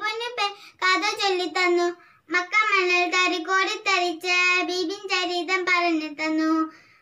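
A young girl sings solo with no instruments. Her held notes break into phrases, with two short pauses for breath.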